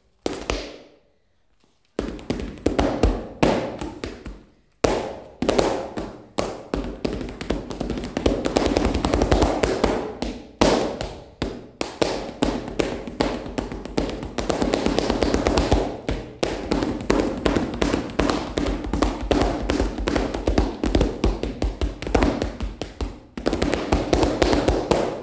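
Flamenco shoes stamping heel and toe in zapateado footwork on a foam-layered practice pad. A few single stamps with pauses open it, then come fast, unbroken runs of sharp strikes.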